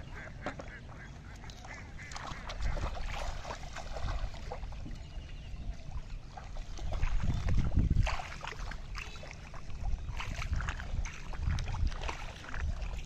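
Bare feet wading and splashing through shallow water in a flooded rice paddy, with short scattered splashes. Low gusts of wind rumble on the microphone about halfway through and again later.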